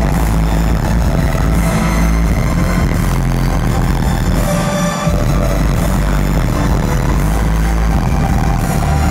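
Electropop duo's live set heard over a concert PA: loud electronic music with very heavy bass and a steady beat, sharp hits landing about every second and a half.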